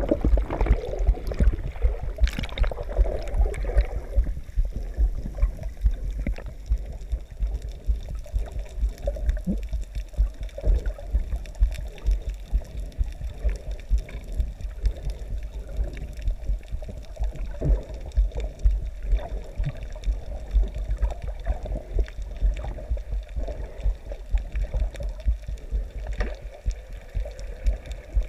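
Muffled underwater sound picked up by a GoPro in its waterproof housing: water gurgling and sloshing with irregular low thuds, and a louder rush of bubbles in the first few seconds.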